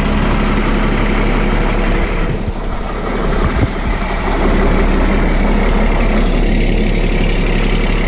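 Caterpillar D6D bulldozer's six-cylinder diesel engine idling steadily, warming up after a cold start. The sound dips briefly two to three seconds in.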